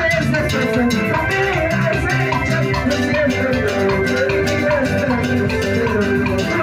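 Live band playing huayno without vocals: a drum kit beats a steady rhythm under a sustained melody line.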